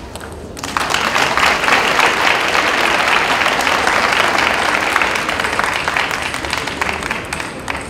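A few sharp clicks of a table tennis ball being played, then an arena crowd breaks into applause about a second in, greeting the point just won, and the clapping tapers off near the end.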